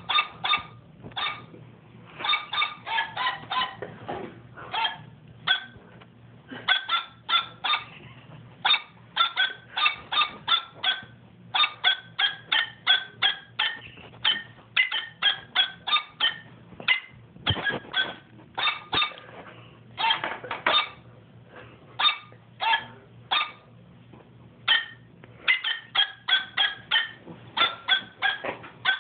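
Dog-like barks and yips in quick runs of short pitched notes, falling into a sing-song rhythm like a tune barked out.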